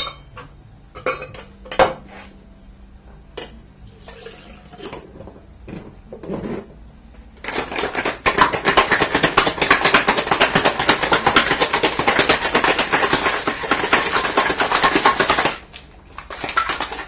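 Metal cocktail shaker being shaken hard: a fast, continuous rattle lasting about eight seconds, starting after a few separate clinks and knocks as the shaker tin and glass are handled and fitted together.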